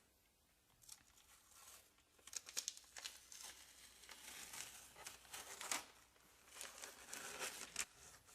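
Faint crinkling and rustling of sheet material being handled, with short tearing sounds coming and going unevenly, loudest a little past the middle.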